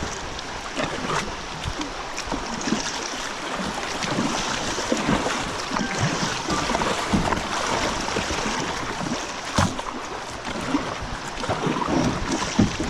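River current rushing and splashing around a kayak, with a couple of sharp knocks: one about a second in and one near the ten-second mark.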